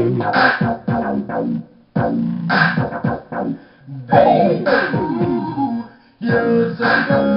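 Music in short, chopped phrases with brief gaps between them, and a run of falling pitch glides near the middle.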